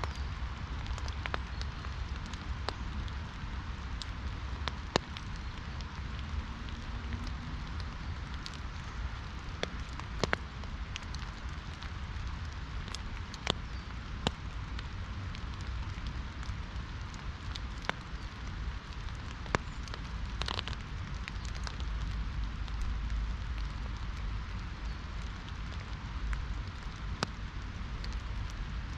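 Steady rain with individual drops striking close by in sharp, irregular taps, a few louder than the rest, over a constant low rush.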